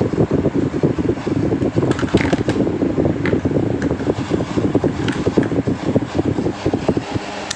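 Electric box fan running with a fast, uneven clattering rattle over its hum; near the end the rattle dies away and a steadier hum is left.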